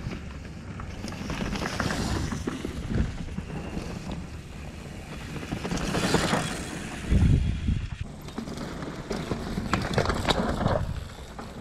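Downhill mountain bikes passing close by on loose dirt, twice: knobby tyres skidding and scraping, spraying dirt, with clicks and rattles from the bikes. A heavy low thump about seven seconds in, just after the first rider passes.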